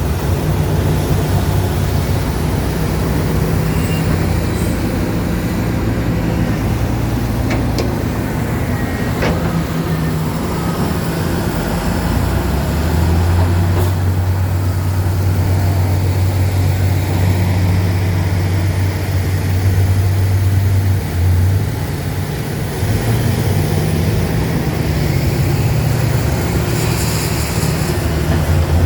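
Heavy diesel machinery running, a low engine drone whose pitch shifts; from about twelve to twenty-one seconds in, a steady, stronger hum. A short hiss comes near the end.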